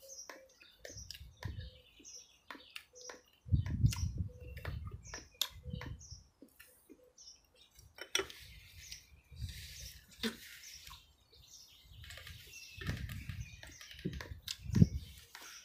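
Small birds chirping again and again, over clicks of a spoon and fingers against ceramic bowls and plates and a paper napkin rustling. Dull low thumps come several times, loudest about four seconds in and again near the end.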